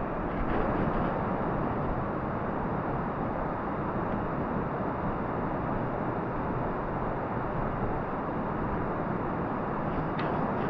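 Steady rush of flowing water, a river running through a cave.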